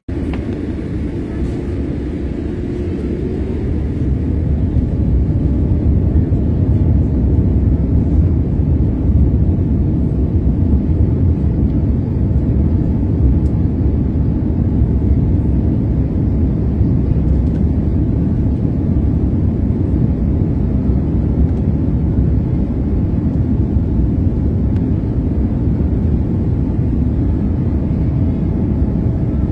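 Airliner cabin noise: a steady low rumble of jet engines and airflow, building over the first few seconds and then holding level.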